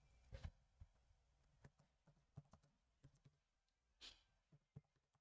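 Near silence with faint, irregular computer keyboard keystrokes and clicks as a command is typed, and a short soft hiss like a breath about four seconds in.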